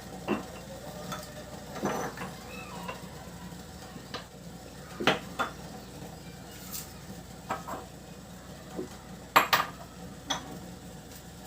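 Kitchen utensils clinking and knocking against pots and dishes: a handful of separate sharp knocks, the loudest pair about nine and a half seconds in.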